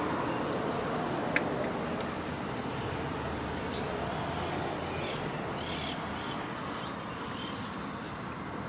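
Steady outdoor background noise with a few faint, short bird chirps about midway and a single small click about a second and a half in.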